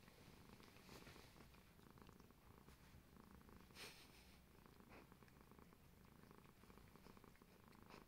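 A cat purring, faint and steady, with soft brief brushing sounds about a second in and again about four seconds in.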